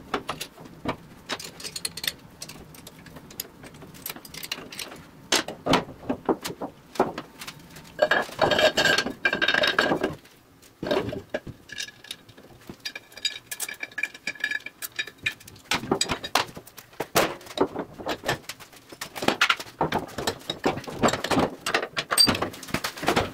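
1940 Ford closed driveshaft and torque tube being fitted together by hand: repeated metallic clinks and knocks of steel on steel, with two longer ringing metal scrapes, about eight seconds in and again around thirteen seconds in.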